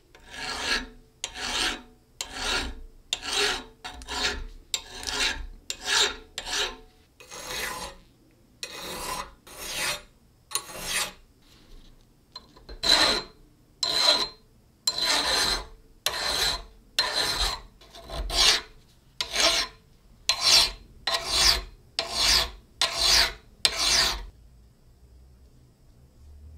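Hand file scraping a wooden handle in about two dozen slow strokes, roughly one a second, with a short pause near the middle.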